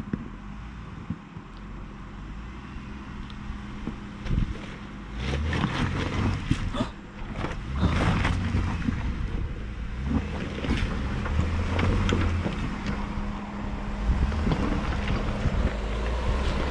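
Jeep Wrangler crawling slowly over a rocky trail toward the microphone: its engine runs with a low steady hum that grows louder as it nears. From about five seconds in, its tyres crunch over loose rock, with sharp cracks and knocks of stones shifting and snapping under the wheels.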